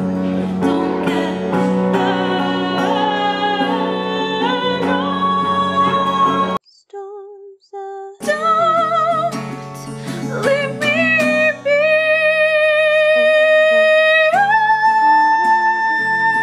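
A woman singing to her own acoustic guitar. The music drops out for a moment about a third of the way through, then she returns with long held notes with vibrato, stepping up to a higher held note near the end.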